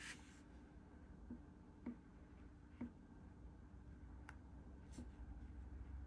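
Near silence with a low room hum. A black brush marker makes a short scratchy stroke on paper right at the start, then its tip gives a few faint ticks as it touches down on the paper.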